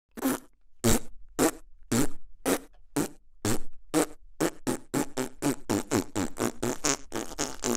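A string of comic fart sound effects, about two a second at first and speeding up steadily to several a second.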